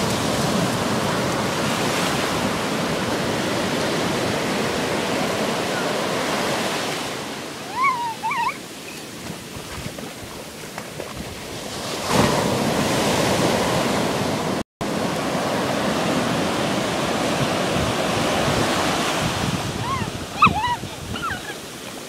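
Surf washing in over shallow sand, a steady rushing that swells and eases as the waves come in and draw back. Short high squeals from children playing in the water break through about eight seconds in and again near the end.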